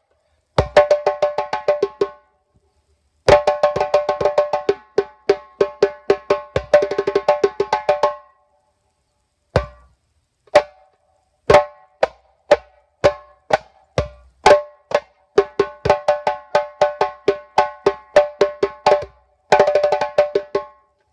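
Djembe played with bare hands: fast runs of ringing strokes, broken by two short pauses, about two and eight seconds in.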